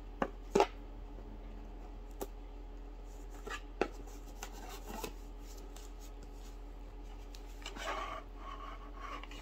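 Scattered small clicks and taps as a ribbon is untied from a cardboard gift box, then a short rustle about eight seconds in as the box's inner drawer slides out.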